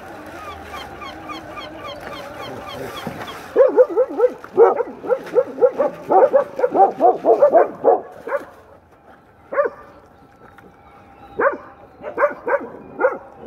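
Several street dogs barking in a rapid flurry for about five seconds around food poured out on the ground, then a few single sharp barks near the end.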